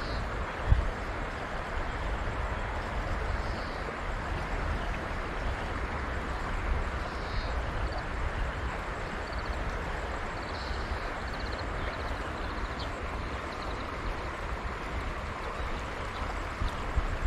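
Steady outdoor rushing noise with low wind rumble on the microphone and a few faint, short, high chirps; one brief thump just under a second in.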